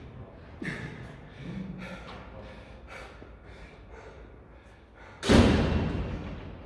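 A person panting hard after an intense workout, in short noisy breaths about twice a second, then a single loud thud about five seconds in that rings on for about a second.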